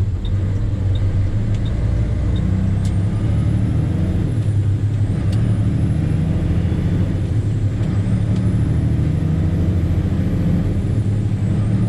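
Tandem dump truck's diesel engine pulling hard from inside the cab as it accelerates away loaded, working up through the gears of its 13-speed transmission. A steady low engine drone, with a faint high whine that climbs and falls back about every three seconds as each gear is taken.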